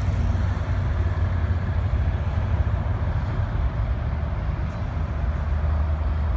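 Steady low rumble of road traffic: heavy vehicles' engines running, easing slightly and then swelling again near the end as a bus draws near.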